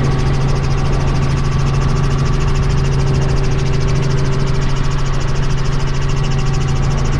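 Tour helicopter in flight, its engine and rotor making a loud, steady drone with a fast even pulsing, heard from inside the cabin.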